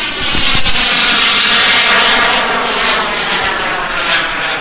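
Radio-controlled turbine jet engine in flight: a loud, steady jet whine over the rush of its exhaust. It is loudest in the first couple of seconds, then eases off slightly as the jet moves away.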